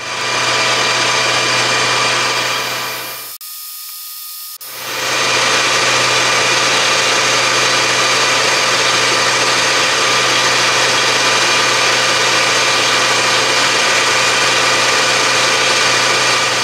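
1982 Colchester 1800 manual lathe running at about 1300 RPM, taking a finishing pass on a tellurium copper rod: a steady mechanical sound with many held tones over a low hum. About three seconds in it drops away sharply for about a second and a half, then comes back at full level.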